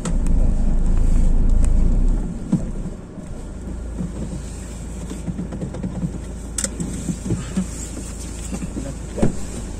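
Car cabin noise from a manual-transmission car: a low engine and road rumble that drops away about two and a half seconds in, leaving a quieter steady hum with a few small clicks and knocks.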